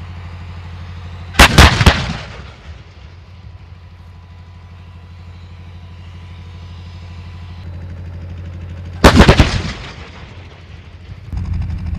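Two short bursts of heavy gunfire about seven and a half seconds apart, each several shots in quick succession with a ringing tail. A steady low engine hum runs underneath.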